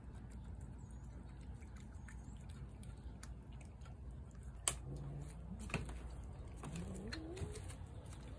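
Cat eating wet food from a plate: faint, scattered small clicks of chewing and licking, with one sharper click just past halfway. Two soft, low rising voice-like sounds come in the second half.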